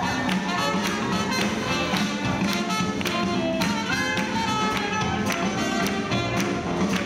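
Swing jazz band playing an up-tempo tune, melody lines sliding over a steady beat.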